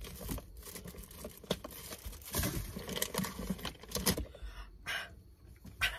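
Rummaging by hand through a car's centre-console compartment: items rustling, clicking and knocking against each other in an irregular patter, thinning out near the end.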